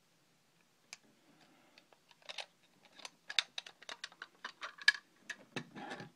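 Irregular clicks and taps of hard plastic, with a few short rustles, as small camera accessories and packaging are handled.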